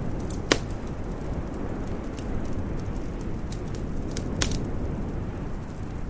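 Wood fire crackling in a fireplace: scattered sharp pops, the loudest about half a second in and another a little before the end, over a steady low rumble.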